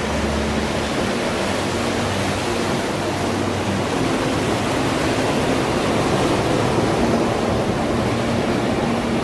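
Ocean surf washing over a rocky shore, a steady rushing noise that swells slightly past the middle.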